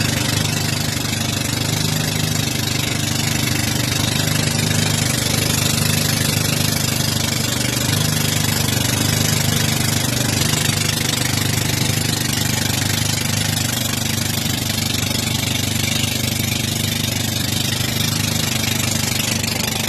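Boat engine running steadily at a constant speed, with a steady rush of wind and water noise over it.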